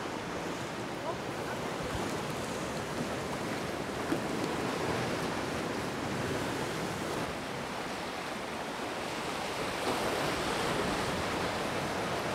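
Sea waves washing over shallow rocks below the bridge: a steady rushing surf that swells slightly near the end.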